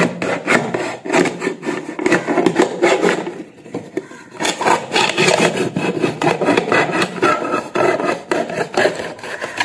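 Kitchen knife sawing back and forth through a thin plastic bottle: a fast run of rasping strokes, with a short pause about three and a half seconds in.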